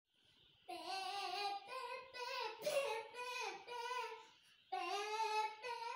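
A young girl singing unaccompanied, holding drawn-out notes, with a short break about two-thirds of the way through before she sings again.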